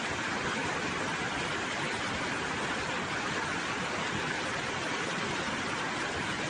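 Steady, even rushing of water, with no distinct events: a flooded river in spate.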